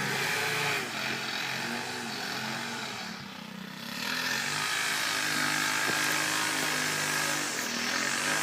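Small gasoline engines of lawn mowers and string trimmers running together in steady engine drone. They ease off about three seconds in, then pick up again.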